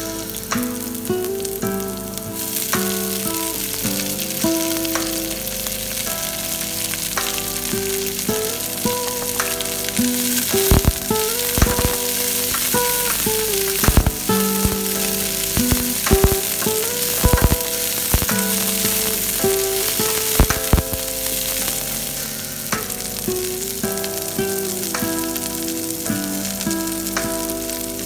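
Garlic and shredded red cabbage frying in hot oil in a frying pan: a steady sizzle that grows louder a couple of seconds in, with a wooden spatula stirring and knocking against the pan now and then in the middle stretch. A soft melody plays underneath.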